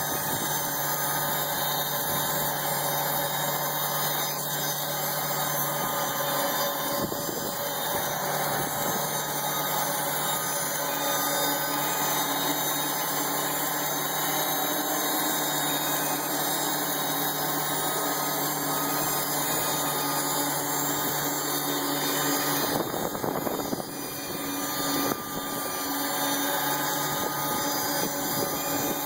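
Sawmill machinery running steadily, a constant mechanical hum with a high hiss, dipping briefly a little over three-quarters of the way through.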